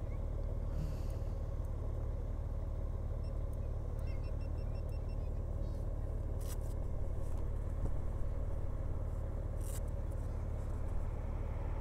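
Honda Gold Wing Tour's flat-six engine idling steadily, with a couple of light clicks about six and ten seconds in.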